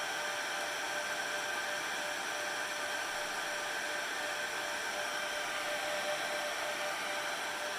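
Dell PowerEdge R630 server's cooling fans running steadily: a constant rush of air with a fixed high whine.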